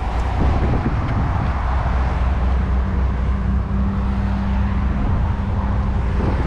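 Steady low rumble of motor vehicles, with a low steady hum that joins about two seconds in and fades near the end.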